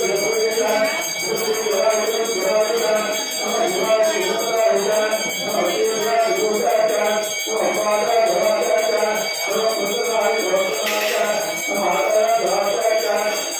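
Temple devotional music playing, with bells ringing throughout and a brief bright clash about eleven seconds in.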